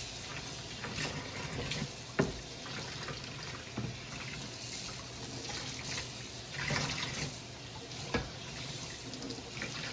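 Kitchen tap running into the sink while dishes are washed by hand, with a few knocks of dishes against the sink.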